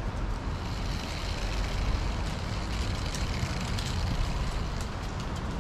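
City street traffic: the steady low rumble of a heavy road vehicle's engine, such as a bus or lorry, with faint light ticks above it in the second half.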